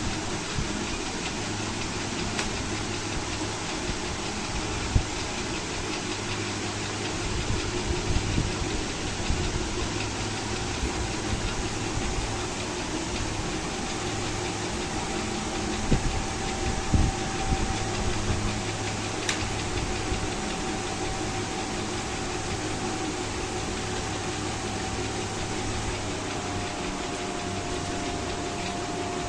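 Electric table fan running with a steady whirring rush of air and a motor hum, the hum's pitch shifting slightly near the end, with a few light knocks.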